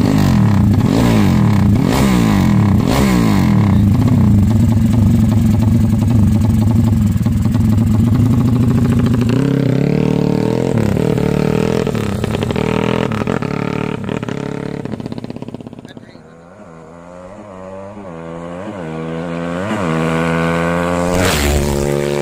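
Motorcycle engine revving in repeated blips. About two-thirds of the way through it dies down, then climbs back with a run of revs that rise in pitch toward the end.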